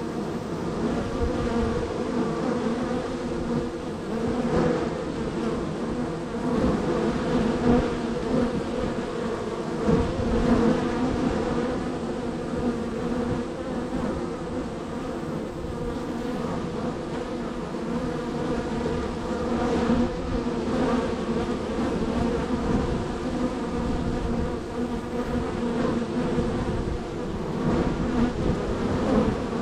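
Many honey bees buzzing around a busy hive entrance: a steady, pitched hum that swells briefly a few times as bees fly close.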